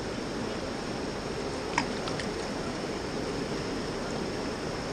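Steady rush of river water flowing past, with a brief sharp click a little under two seconds in.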